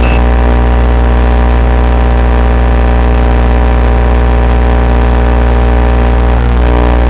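Loud, steady electrical buzz-hum of many stacked tones on the FPV video link's audio channel. It seems to come from the video transmitter sending mono audio to a Fatshark receiver module that expects stereo.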